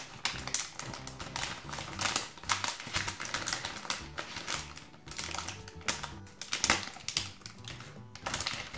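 A plastic foil blind-bag packet being crinkled and torn open by hand: a dense run of sharp crackles and rustles. Background music with a steady bass line plays underneath.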